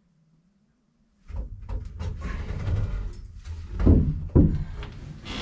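Wooden knocks, thumps and rubbing as a hinged bunk frame of framing lumber is moved against the plywood wall, starting about a second in, with two louder thumps near the four-second mark.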